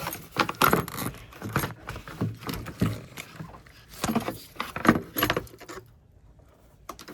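Irregular clinking, clicking and knocking of metal and plastic parts being wrenched and worked loose by hand in a car's engine bay, stopping about six seconds in.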